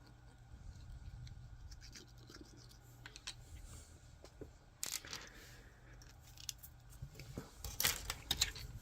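Small 3D-printed plastic parts being handled on a work surface: faint scrapes and light clicks, a sharper click about halfway through, and a quick run of clicks near the end.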